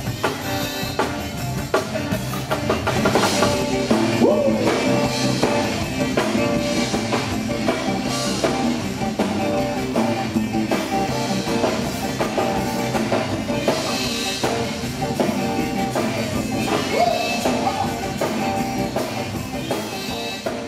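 Live Cajun dance band playing an instrumental stretch: a drum kit keeps a steady beat under guitar and other instruments, with a few bent notes.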